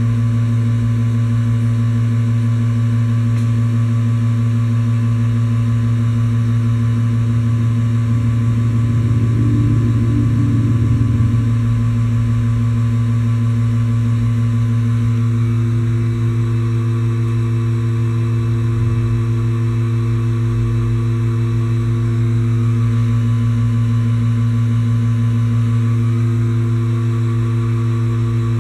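Vacuum pump motor running steadily with a deep hum as it pulls the chamber down toward a high vacuum.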